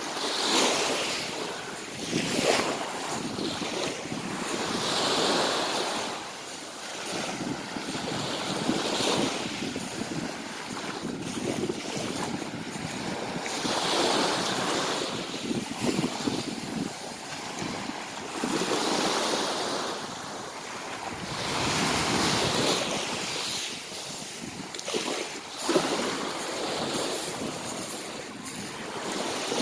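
Small waves breaking and washing up a pebble beach, swelling and easing every few seconds, with wind buffeting the microphone.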